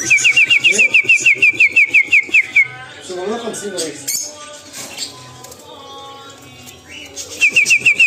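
A rapid, very even trill of short falling whistled notes, about nine a second, drifting slightly lower in pitch, for the first two and a half seconds and again near the end. Caged budgerigars chatter and click in between.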